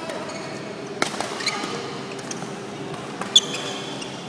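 Badminton rackets striking a shuttlecock in a rally: a sharp hit about a second in and a louder one about three seconds in, with a few fainter taps, over a steady low hum.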